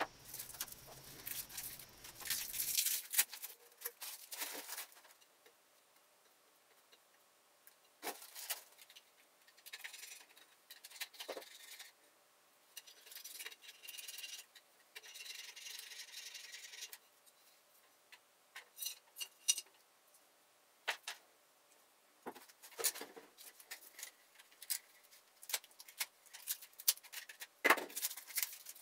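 Faint, intermittent handling sounds: duct tape being peeled off glass bottles in a few crackly stretches, with scattered light clicks and knocks of the glass being handled and set down on a wooden bench.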